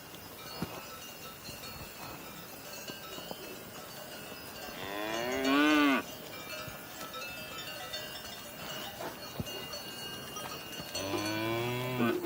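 Cows mooing: one long moo about five seconds in that rises and then falls in pitch, and a second moo that starts near the end.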